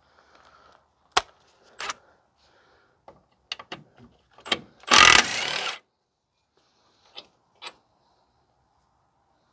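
Metal tools and a socket clinking and clicking, then about five seconds in a burst of just under a second from a power tool, loosening a 17 mm hub mounting bolt. A few more clicks near the end.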